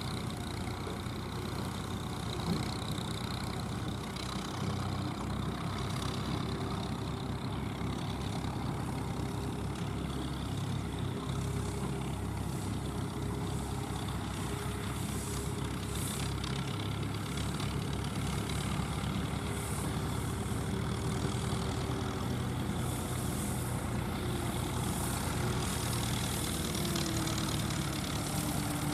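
Deutz D5006 tractor's air-cooled three-cylinder diesel running steadily under load while it pulls and powers a round straw baler. The pitch dips slightly near the end.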